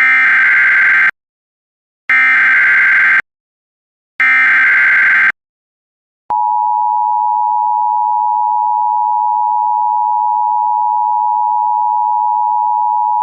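Emergency Alert System broadcast heralding an AMBER Alert: three bursts of SAME digital header data, each a harsh electronic screech about a second long with a second of silence between. About six seconds in, the steady two-tone EAS attention signal starts.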